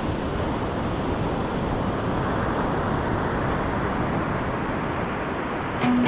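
Steady wind rumble on the microphone over the continuous wash of surf.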